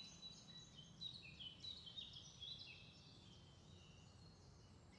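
Near silence, with faint high chirps of birds in the background during the first few seconds.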